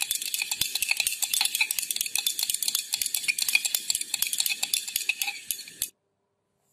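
Vigorous stirring in a glass beaker: the stirrer clinks rapidly against the glass many times a second, mixing the oil and water phases into an emulsion. It cuts off abruptly near the end.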